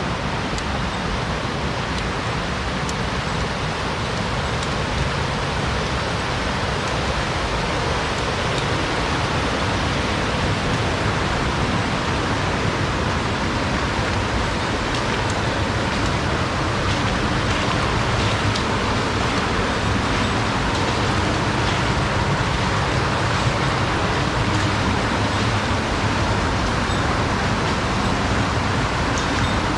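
Steady, unbroken rush of fast-flowing water, loud and even throughout.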